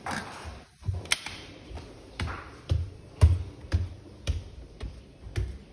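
Footsteps on a hard floor, a steady walking pace of about two steps a second, each a dull thud with a sharp tap on top.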